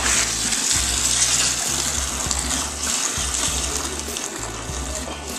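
A stream of cold water poured from a height into a plastic fermenting bucket of wort, splashing steadily and frothing the wort as it aerates it. The splashing eases off a little over the last couple of seconds.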